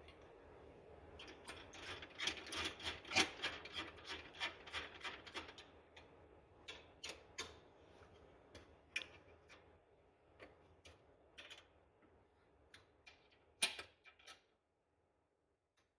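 Faint rapid clicking and scraping of hand tools turning the seat-latch hook bolts with a Torx or hex key. A quick run of clicks lasts several seconds, then single clicks follow, the sharpest near the end.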